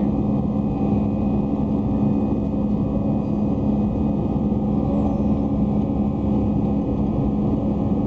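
Airbus A320 cabin noise in flight, climbing after takeoff: the jet engines and rushing air make a steady drone, with a hum held at one low pitch throughout.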